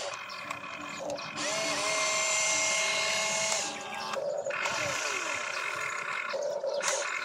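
Electric motor whine of a radio-controlled excavator as it raises and swings its loaded bucket. The pitch glides up about a second and a half in, holds steady for about two seconds, then drops, and the whine stops briefly twice near the end.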